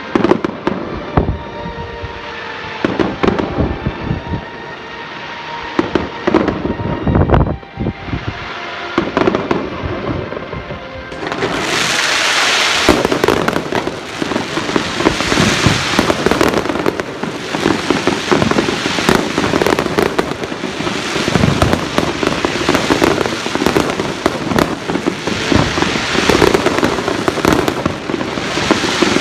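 A fireworks show: shells bursting with sharp bangs over background music. About eleven seconds in, a dense barrage of crackling bursts starts and keeps going.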